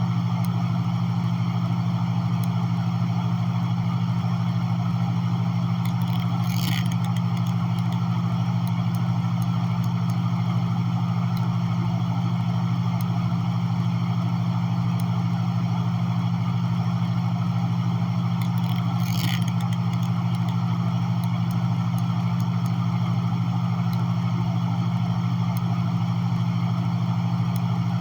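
A steady, unchanging low hum with an even hiss above it, holding one pitch throughout, with two brief faint high sounds about seven and nineteen seconds in.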